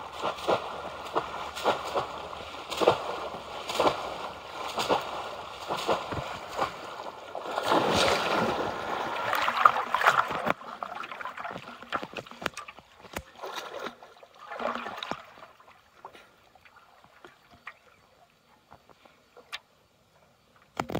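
Bamboo polo fish traps slammed down again and again into a shallow muddy pond, with the splashing and sloshing of people wading through the water. The strokes come in quick succession, heaviest about eight to ten seconds in, then thin out and fade to faint sloshing and drips.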